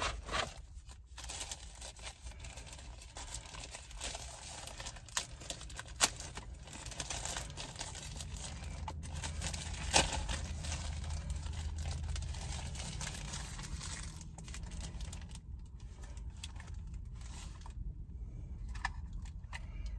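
Plastic packaging crinkling and rustling as a new drone is unwrapped from its protective bag by hand, with a couple of sharp clicks. A low steady hum runs underneath.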